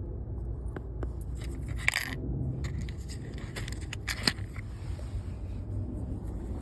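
Small sharp clicks and light rattles of a plastic blade fuse and the fuse panel being handled, the loudest about two seconds in and again about four seconds in, over a steady low rumble.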